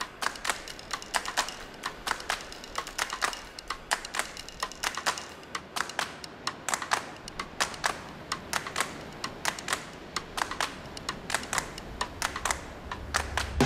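A fast, irregular run of sharp clicks, several a second, with a low rumble swelling near the end.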